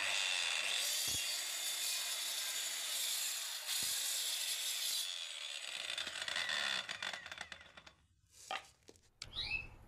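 Hasston marble cutter, fitted with a 4-inch saw blade, cutting through a wooden board: a steady hissing cut that eases off about five seconds in and dies away by about seven. A few faint knocks follow near the end.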